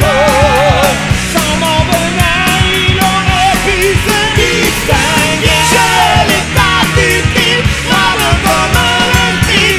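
Punk rock song sung in French: a lead voice sings over a full rock band with a steady, driving drum beat.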